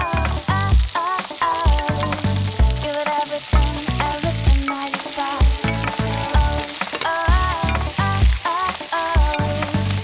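Shrimp heads and vegetables (onion, shiitake, green onion, cabbage) sizzling as they are stir-fried in a hot pot, under background music with a steady beat.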